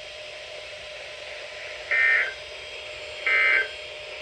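Emergency Alert System end-of-message (EOM) tones: two short, identical warbling data bursts, the first about two seconds in and the second about a second and a half later, over a faint steady hum. These closing bursts mark the end of the alert.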